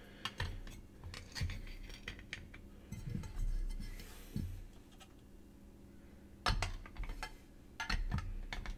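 Plastic trading-card cases and cards being handled on a tabletop: scattered light clicks and taps, a brief sliding rustle about four seconds in, and quick clusters of clicks near the end.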